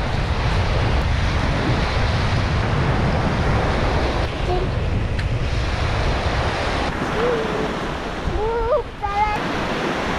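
Small sea waves breaking and washing up a sandy beach, with wind buffeting the microphone as a low rumble. Near the end a voice is briefly heard.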